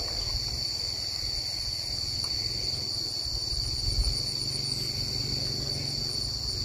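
Steady, high-pitched droning of insects, with a low rumble of wind on the microphone underneath.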